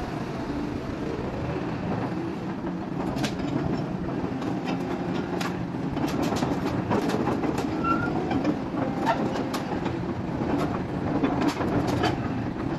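Hitachi Zaxis 120 crawler excavator's diesel engine running steadily as the upper house swings round. From about three seconds in, its steel crawler tracks clank and rattle repeatedly as the machine travels forward.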